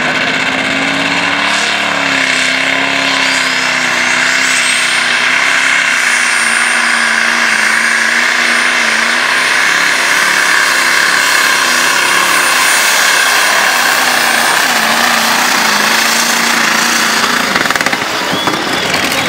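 Competition pulling tractor's engine running flat out as it drags the weight sled down the track, a steady, loud engine note. A high whine rises in over the first few seconds and holds for about ten seconds before fading.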